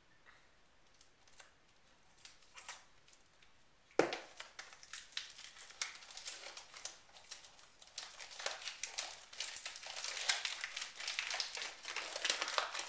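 Packaging being opened: a few faint scissor snips, then a sharp snap about four seconds in, followed by continuous crinkling and tearing that grows louder.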